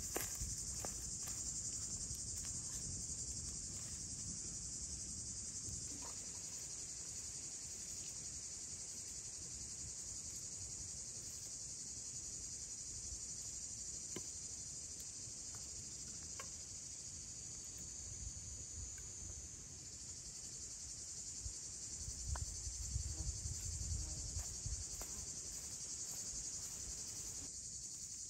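Steady high-pitched chirring of a daytime insect chorus, with scattered faint crackles from a small wood campfire and a stretch of low rustling a few seconds before the end.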